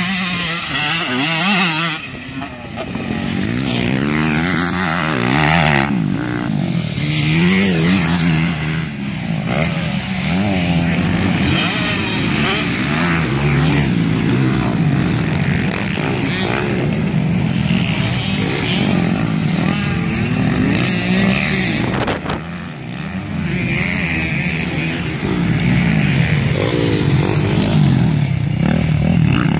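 Several motocross dirt bikes racing on a sandy track, their engines revving up and down with pitch rising and falling through the gears, briefly dropping off about two seconds in and again about twenty-two seconds in.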